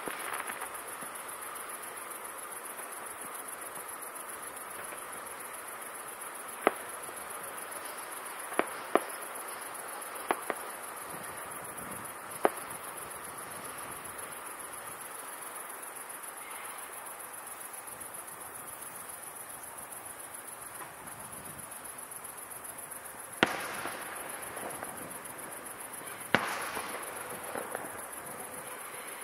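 Fireworks shells bursting: a scattering of single sharp bangs in the first half, then two louder bursts near the end, each with a trailing rattle.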